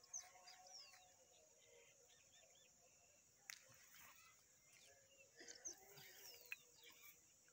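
Quiet outdoor ambience: faint bird chirps, short calls sweeping downward, a few near the start and again around five to six seconds in, over a steady high hiss. One faint sharp click comes about three and a half seconds in.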